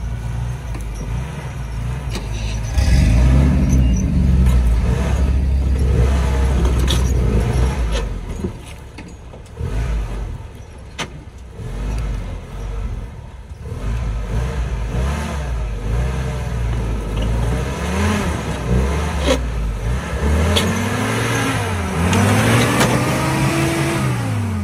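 Willys jeep engine revving up and down several times as the jeep climbs a rock ledge. The longest and loudest run-up comes near the end, as the rear wheel throws dust.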